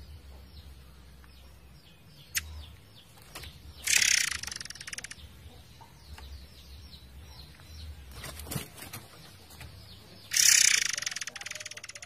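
Murai air songbird singing: a run of short, quick, downward-slurred chirps, broken twice, about a third of the way in and near the end, by a loud, dense, rapid volley of notes lasting about a second.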